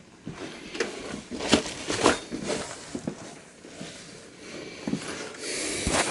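Handling noises as someone moves about a small room and packs things: a string of small knocks, clicks and rustles, with a louder rustle near the end.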